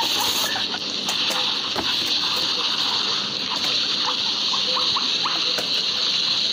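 Newspaper rustling and a plastic guinea pig cage base being handled while the cage is relined, over a steady high hiss. Short squeaks from the guinea pigs come now and then.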